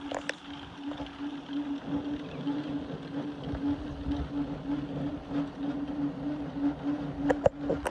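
Battery-powered athletic-field line-marking robot running as it sprays a paint line: a steady, slightly pulsing hum from its drive and paint pump over a noisy background, with a couple of sharp clicks near the end.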